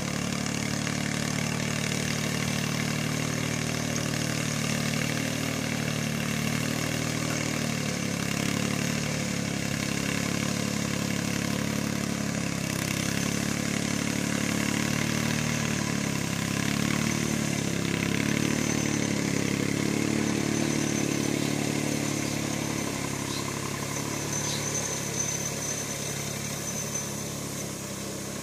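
VST Mitsubishi mini tractor's diesel engine running steadily as it drives through a field with its mounted sprayer misting. The sound grows a little fainter over the last few seconds as the tractor moves away.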